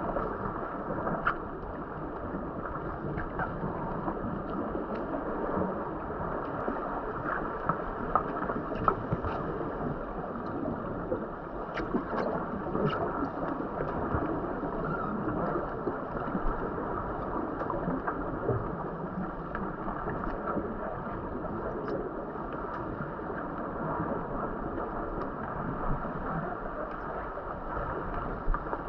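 Pool water heard underwater: a steady, muffled rush of water and bubbles, with scattered small clicks and knocks from the players' struggle and the divers' exhalations.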